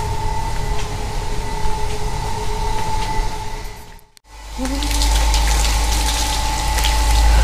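A steady hum over background noise, then, after a sudden dip about four seconds in, water from a garden hose running loudly into a metal bowl of apples and pears to wash them.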